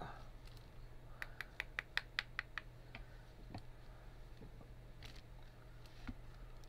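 Light clicks and taps of a tamper pressing crumbled pan pastel back down into its pan: a quick run of about six clicks a second for a second and a half, then a few scattered taps.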